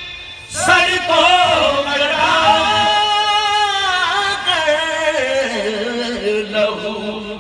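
A man singing a devotional phrase unaccompanied, in one long, drawn-out line that starts about half a second in, then glides downward and settles on a low held note near the end.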